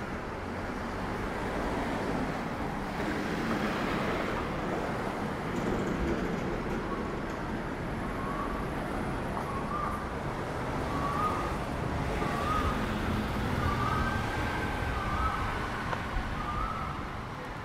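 Steady street traffic noise. From about seven seconds in, a short chirp repeats about once a second.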